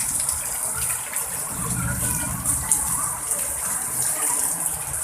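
Heavy rain pouring down in a steady hiss, with strong gusting wind.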